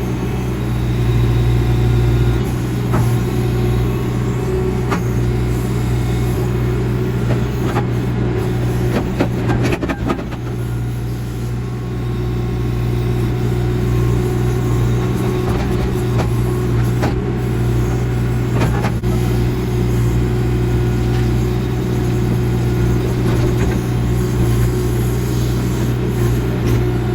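Backhoe engine running steadily under load while digging, with a few sharp knocks from the bucket and arm.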